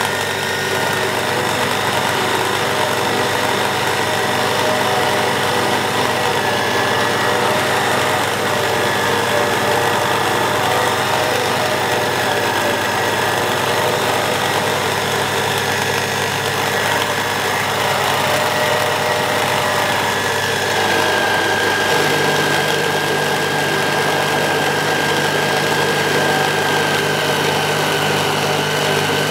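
Sherline benchtop milling machine running steadily, its 10 mm end mill taking a light cut along the side of a mahogany rifle stock as the table is fed by hand. About two-thirds of the way through, the low hum of the motor shifts in pitch.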